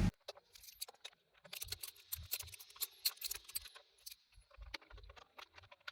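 Faint, irregular small clicks and light knocks of hand tools and fittings being handled at the dashboard while the cover's bolts are undone.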